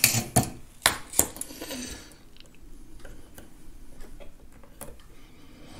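Handling of small metal soldering gear: several sharp metallic clicks and knocks in the first two seconds, then fainter scattered ticks, as the helping-hands stand's crocodile clips and the soldered wire are handled.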